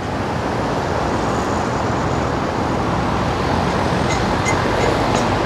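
Steady traffic noise of cars, trucks and motorbikes driving along a busy multi-lane city avenue.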